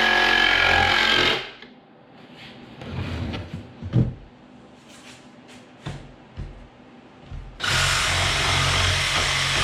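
A power tool's motor running steadily, shutting off about a second in; a few sharp knocks and taps on wood follow, and the motor starts up again abruptly near the end.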